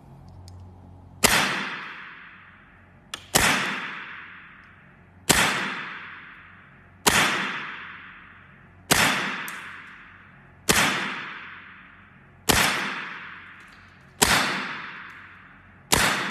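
Semi-automatic .25 calibre Evanix PCP air rifle firing a string of nine shots, about one every two seconds, each a sharp crack with a long echoing tail that dies away before the next.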